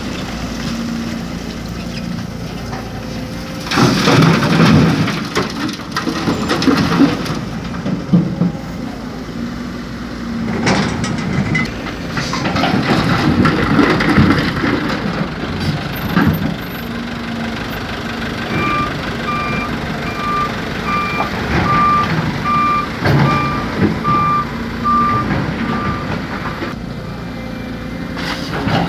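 A heavy machine's diesel engine runs throughout, broken by several loud, noisy surges as the excavator loads soil into the dump truck. Past the middle, a back-up alarm beeps steadily for about seven seconds, a little faster than once a second.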